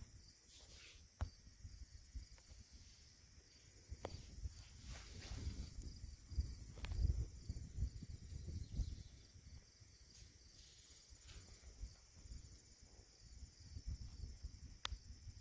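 Faint, uneven low rumbling with a few scattered sharp clicks.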